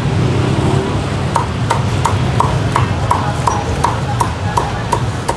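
Cleaver chopping roast pork ribs on a wooden block: a steady run of sharp knocks, about three a second, starting about a second in, over a low traffic rumble.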